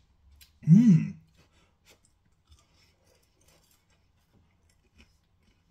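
A man's short wordless vocal sound, rising then falling in pitch, about a second in, then faint chewing and small clicks of fingers pulling apart a crumbly breadcrumbed mac and cheese bite.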